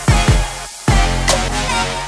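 Background music with a heavy beat: a deep bass hit about once a second, with sharp snare-like hits between.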